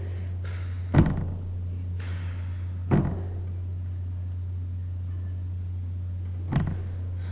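Steady low hum under three dull thumps, about a second in, near three seconds and near the end: the hands and arms of someone signing knocking against the desk in front of the webcam.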